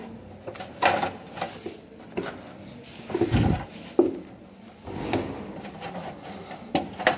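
Irregular clicks and knocks of hands handling metal parts around a motorcycle's side stand and its switch bracket, with a dull thump about three seconds in.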